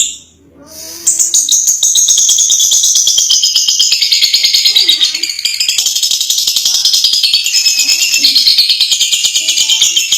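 Lovebird singing a long ngekek: a continuous, very rapid, high rattling chatter that starts about a second in and runs on without a break.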